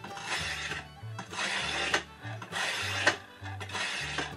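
Coarse-grit wetted sharpening stone on a guided sharpener arm scraping back and forth across a steel kitchen-knife edge, about one stroke a second, with soft background music underneath.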